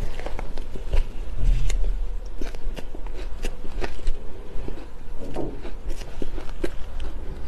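Close-miked crunching and chewing of mouthfuls of shaved ice, a dense, irregular run of sharp crackles and crunches.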